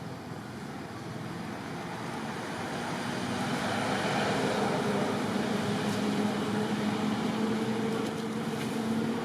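A motor vehicle's engine with a steady low hum, growing louder about three seconds in and staying up, then easing slightly near the end.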